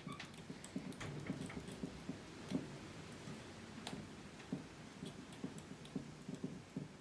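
Kitchen utensils and containers being handled on a table: irregular light clicks and soft taps, a few sharper clicks among them, such as a whisk knocking a bowl and bottles being picked up.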